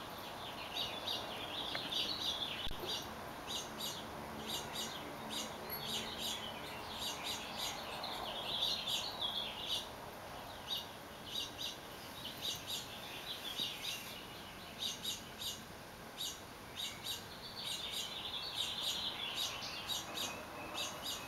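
Small songbirds chirping and twittering: many short chirps, with busier bursts of twittering now and then.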